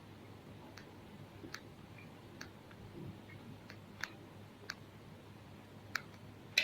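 Faint, irregular small clicks and ticks from hands working a thin coaxial cable with a cable cutter while stripping it, with the sharpest click near the end.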